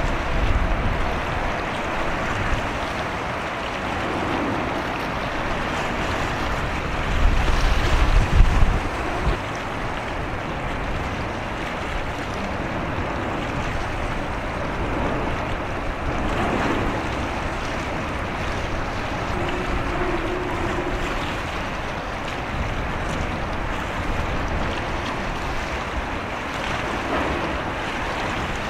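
Wind on the microphone over the steady rush of waves, with heavier wind buffeting about seven to nine seconds in.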